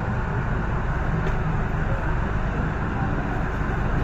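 Steady low rumble and hiss inside an MTR Island Line M-train carriage.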